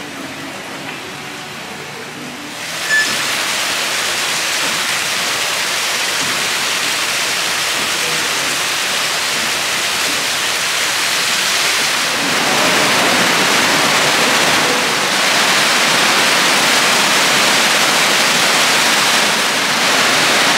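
Canal water gushing into a dry dock as it is flooded to refloat a boat, a steady rushing that sets in abruptly about three seconds in and grows a little louder about halfway through.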